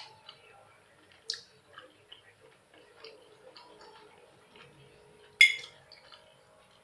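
A metal fork clinking against a ceramic plate: a sharp clink at the start, another about a second in, and the loudest about five and a half seconds in. Faint chewing sounds between the clinks.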